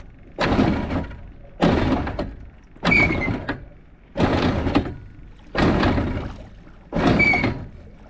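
Heavy thuds at a sailboat's bow, seven in a steady rhythm about 1.3 seconds apart, each starting sharply and trailing off over about half a second.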